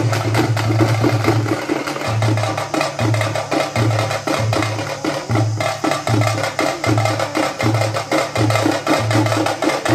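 Percussion-led music: a fast run of sharp, wood-block-like strikes over a deep drum beat that comes about every three-quarters of a second.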